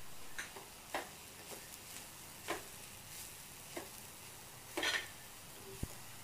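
A spoon stirring banana stem stir-fry in an earthenware clay pot, making irregular short scrapes and taps against the pot about once a second. The loudest is a double scrape about five seconds in, and there is a soft knock near the end.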